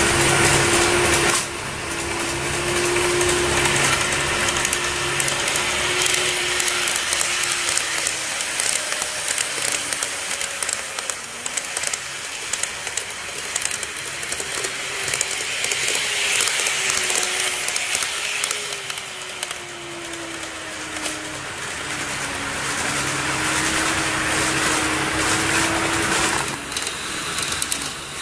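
KATO N-gauge model electric train running on the layout track: a motor whine that wavers and drifts slowly in pitch, over a rolling rumble of wheels on rail. The sound is louder for the first second and a half, then grows and fades as the train moves nearer and farther around the layout.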